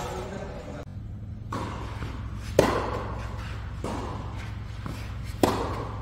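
Tennis ball struck by rackets in a rally: two sharp hits about three seconds apart, with softer ball knocks between them, ringing on in a large hall.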